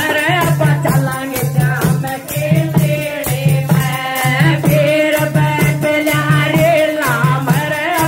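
Haryanvi-style Shyam bhajan folk song: a voice singing over a steady low drum beat, with a jingling rattle or tambourine keeping time.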